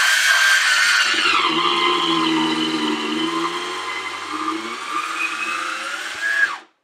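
Metrokane Rabbit electric wine opener's motor whining as it drives the corkscrew and pulls the cork, running on a freshly replaced battery pack. The pitch drops about a second and a half in, climbs again near the end, then the motor cuts off suddenly as the auto-stop switch trips.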